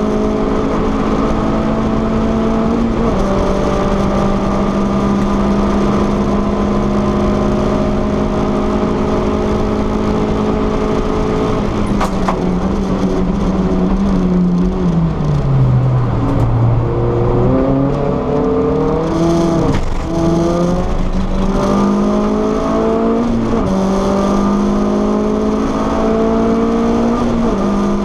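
VW Lupo GTI Cup race car's four-cylinder engine heard from inside the stripped cabin. It is held at high revs, then the revs fall away around the middle as the driver brakes and downshifts. Then it accelerates hard through a run of upshifts, each rise in pitch cut off by a sudden drop.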